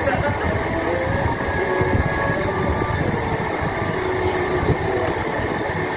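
Steady rumbling restaurant din: the low roar of ventilation and extractor fans mixed with the room's general noise.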